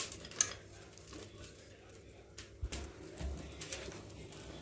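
Faint, scattered clicks and scrapes of a wire whisk stirring chopped nuts into thick cake batter in a steel bowl.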